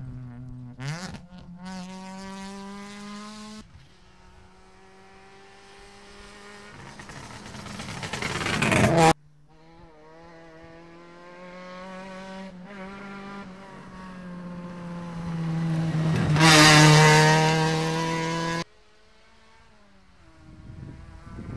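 Rally cars at full speed on a special stage, one after another. Each engine builds and climbs in pitch as the car approaches and is loudest as it passes, with sudden cuts between passes.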